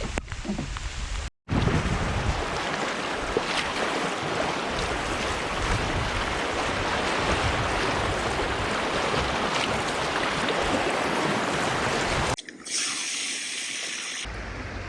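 Rushing river water in a loud, steady, even rush, heard in a few short clips cut together, with sharp breaks between them.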